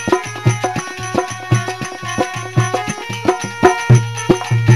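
Instrumental passage of a Rajasthani folk bhajan: hand drums keep a quick, steady rhythm with deep bass strokes, under sustained melodic notes, without singing.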